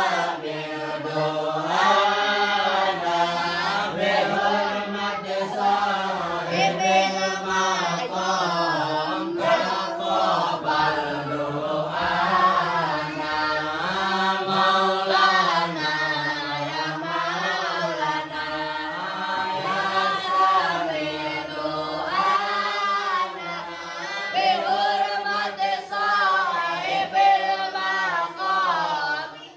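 A group of voices chanting sholawat together: a slow, melodic Islamic devotional chant sung in unison, with lines that swell and fall in pitch.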